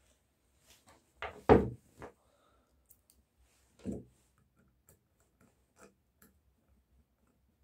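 Steel parts of a small homemade screw clamp knocking against each other and on a wooden worktable as it is assembled: a few knocks about a second and a half in, another near four seconds, then light clicks as the screw is turned.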